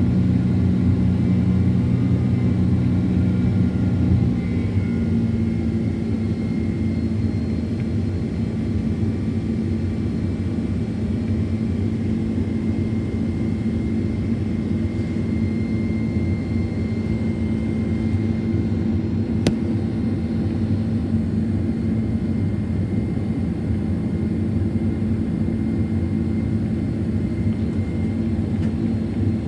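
Boeing 767-400ER's GE CF6 jet engines and airflow heard from inside the cabin: a steady low roar with a low hum, easing slightly about four seconds in. One faint click about two-thirds of the way through.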